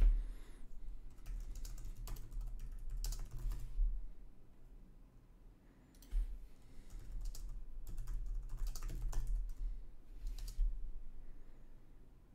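Typing on a computer keyboard: a run of keystrokes, a pause about four seconds in, then a second run that stops shortly before the end.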